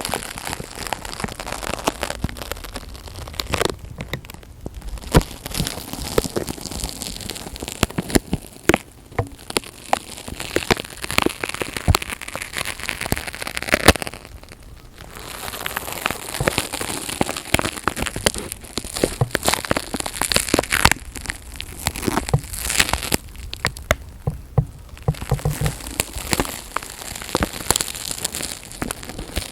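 Dense close-miked crackling and crinkling, like material being handled right against the microphone, going in stretches with a few brief pauses.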